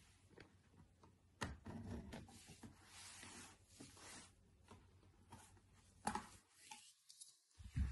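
Faint rubbing and rustling of packaging being handled during an unboxing, with a few light knocks.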